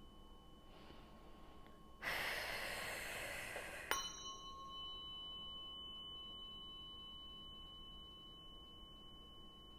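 Tuning fork ringing with a steady high tone and a higher overtone; about two seconds in comes a two-second rush of noise, then a sharp tap as the fork is struck again, and the renewed tone rings on, slowly fading.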